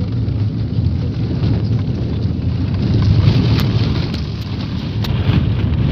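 Steady low rumble of a car driving, heard from inside the cabin, with a few short sharp clicks or rattles in the second half.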